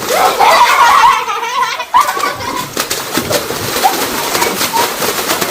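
Children's high-pitched squeals and giggles without words, several short wavering cries, the loudest in the first two seconds.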